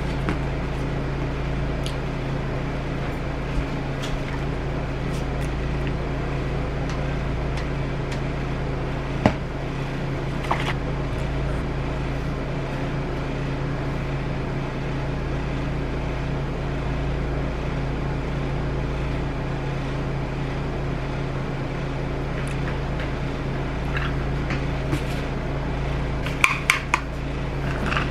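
Steady electrical hum with a few light clicks of a plastic cup, and near the end a quick cluster of clicks as a plastic lid is pressed onto the cup.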